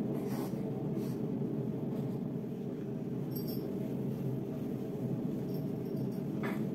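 Steady low rushing pink noise, a sleep sound played to settle a baby, with a few brief rustles of the fabric baby wrap being adjusted.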